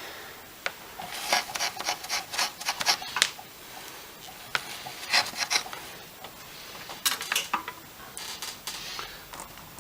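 Scraping and rubbing handling noise from working with small parts and tools, coming in four bursts of quick scratchy strokes with quieter gaps between.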